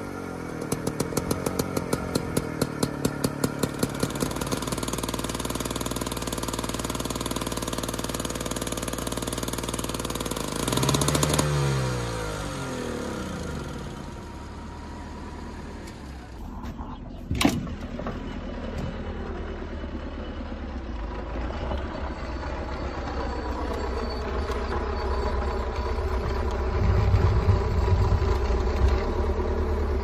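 DT-75 crawler tractor's diesel engine being started in the frost. It clatters fast at first, swells briefly, gives a sharp knock, then runs steadily with a deeper, heavier note near the end.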